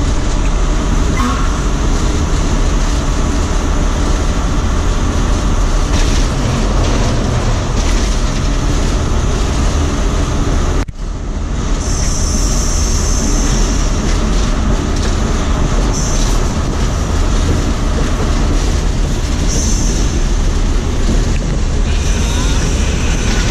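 Cab noise of an Alsthom diesel-electric locomotive under way: a steady low engine drone with wheel and rail noise. It breaks off for an instant about halfway, and short high-pitched squeals come and go several times in the second half.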